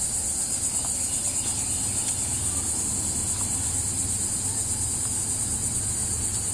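Steady high-pitched chorus of crickets with a fast, even pulse, over a low rumble.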